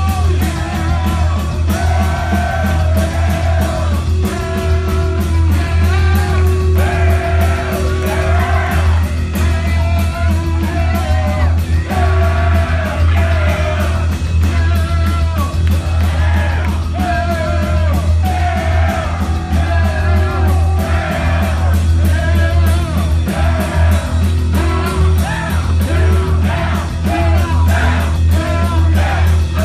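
Heavy metal band playing live and loud: distorted electric guitar, bass and drums, with a wavering lead line that bends up and down on top.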